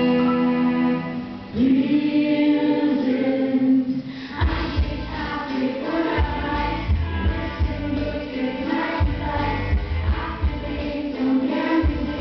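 Pop song with singing and choir-like backing vocals: held notes for the first few seconds, then a heavy drum beat comes in about four seconds in.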